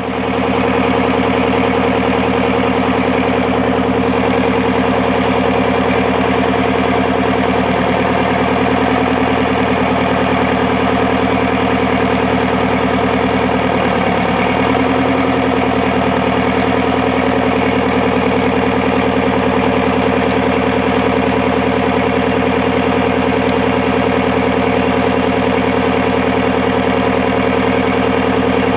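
Detroit Diesel 8V71 Ti two-stroke V8 diesel running steadily. Its pitch dips briefly about 8 seconds in and again about 14 seconds in.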